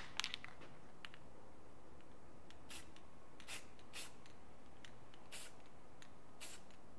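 Aerosol can of pink paint sprayed in about five short hissing bursts onto the bare aluminium bearing saddles of an air-cooled VW engine case. The saddles are being coated to check whether the main bearings overlap the oil passages.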